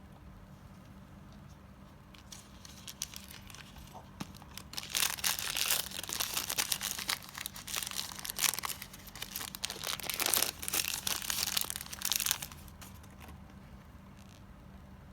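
Crinkly plastic packaging being crumpled and torn open by hand. It begins faintly a couple of seconds in, is loud and dense from about five seconds in, and stops about twelve seconds in.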